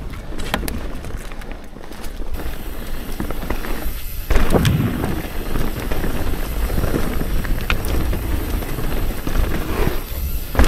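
Mountain bike ridden fast down a dirt singletrack, heard close up: tyre and wind rush with scattered sharp clicks and rattles from the bike. A heavy thump about four seconds in, just after a brief lull.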